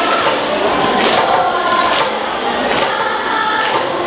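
A group of children singing together, with a regular beat about once a second under the voices.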